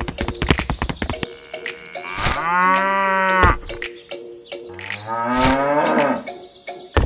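Two long cow moos, the first about two seconds in and the second about five seconds in, dubbed in as a sound effect for a toy cow, over light background music. A rapid clicking runs through the first second.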